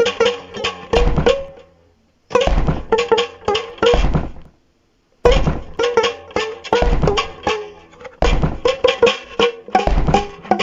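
Music: a percussive track with heavy drum thumps and plucked notes, playing in short phrases that stop dead for brief silences about two and five seconds in.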